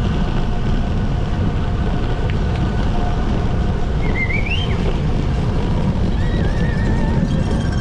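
Steady wind buffeting the microphone, a loud low rumble, with two brief faint wavering high tones about halfway through and near the end.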